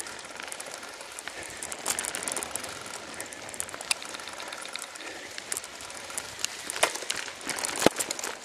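Bicycle riding over a rough grassy towpath: steady tyre noise with frequent clicks and rattles from the bike, and a sharper knock near the end.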